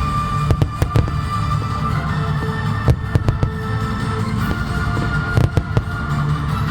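Fireworks going off in many sharp, irregular bangs over music with long held tones.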